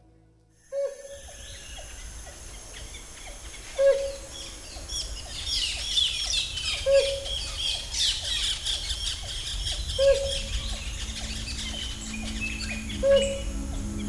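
Tropical rainforest bird chorus, starting suddenly about a second in: many birds calling over one another with short high chirps and whistles, and a loud low hoot repeating about every three seconds.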